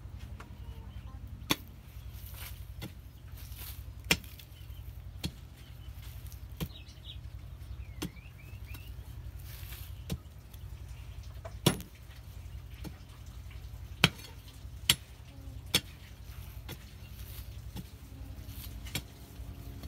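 Metal digging bar jabbed into hard earth, giving sharp knocks about once a second, over a steady low rumble.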